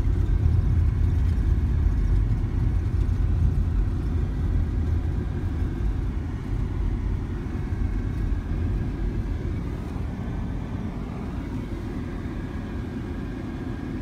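Low, steady rumble of a car driving on an unpaved gravel road, heard from inside the cabin: engine and tyre noise. It grows gradually quieter through the second half.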